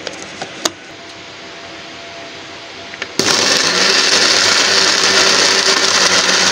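A few light plastic clicks as the grinder jar is handled on its base, then about three seconds in an electric mixer grinder starts abruptly and runs steadily, grinding fried onions, yogurt and coconut powder into a wet paste.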